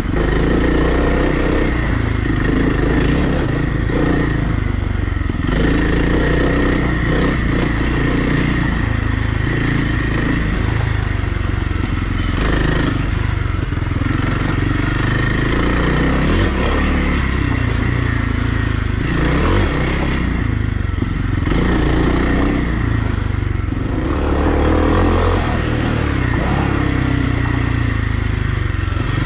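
Dirt-bike engine, a Kawasaki KLX300R's single-cylinder four-stroke, running continuously while riding a trail, the throttle opening and closing every few seconds, with occasional clatter.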